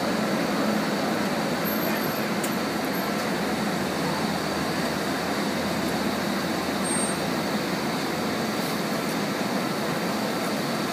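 Steady, even drone of a parked airliner's cabin ventilation and nearby running machinery, heard from inside the cabin, with a faint steady high whine.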